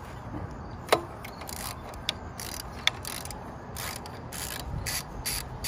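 Hand socket ratchet clicking in a run of short, quick strokes as it turns a 12 mm bolt on a motorcycle's foot-peg mount. A single sharp click about a second in is the loudest sound.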